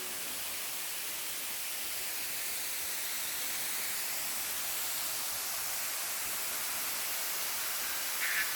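Steady rushing hiss of a waterfall, even throughout.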